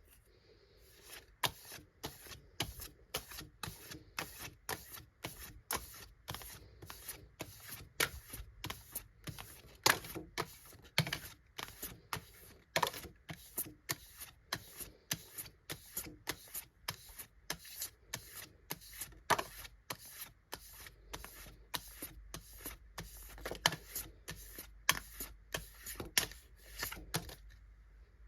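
Pokémon trading cards being flipped or snapped one after another in the hand: crisp clicks about twice a second, stopping just before the end.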